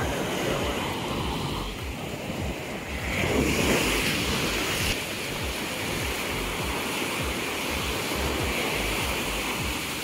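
Small waves breaking and washing up on a sandy beach, with a louder surge of surf about three to four seconds in. Wind buffets the microphone with a low rumble.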